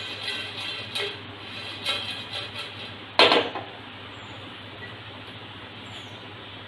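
Whole spices (cinnamon pieces, cloves and green cardamom pods) rattling and scraping in a nonstick frying pan as they are moved about during dry roasting, with one louder knock about three seconds in. After that only a steady low hiss remains.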